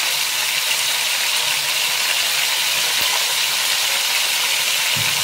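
Mutton chop pieces sizzling in hot oil in an aluminium pressure cooker: a steady, even hiss.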